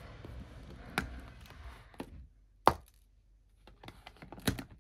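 Clear plastic cover of an A5 ring binder being opened and handled on a wooden desk: three sharp clicks and taps, the loudest about two and a half seconds in, with a few fainter ticks near the end.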